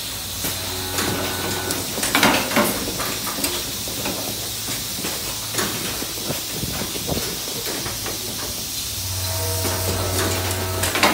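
Automatic suction catheter assembly machine running: pneumatic actuators hiss and clack in irregular succession, loudest about two seconds in and near the end, over a low hum that fades out after the first two seconds and returns near the end.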